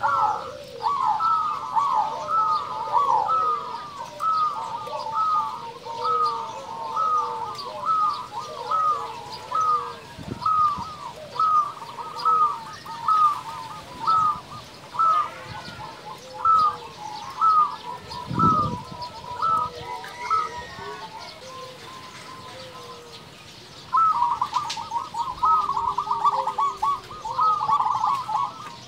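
Zebra dove (perkutut) singing: a long string of short cooing notes, about two a second, that fades out after about twenty seconds. After a short pause comes a faster, denser run of notes near the end.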